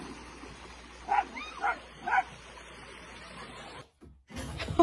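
A dog barking three short times, about half a second apart. After a brief silence, a loud knock comes at the very end.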